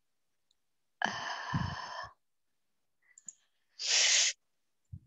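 A person's breathy sigh about a second in, then a short, sharp hiss of breath near four seconds, with silence between.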